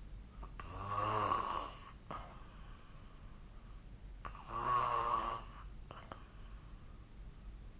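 Snoring in sleep: two snores, each about a second and a half long, roughly three and a half seconds apart.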